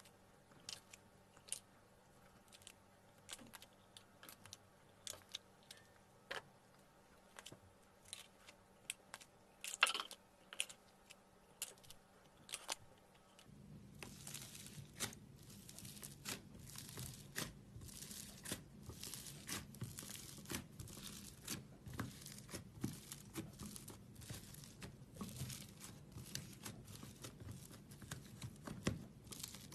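Fingers pressing and squishing slime: small sticky clicks and pops, sparse at first, then a denser crackling from about halfway through.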